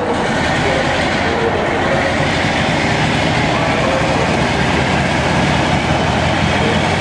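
Class 47 diesel locomotive's Sulzer twelve-cylinder engine working under power as it hauls a train of coaches away from the platform, a steady heavy diesel running note over rail noise.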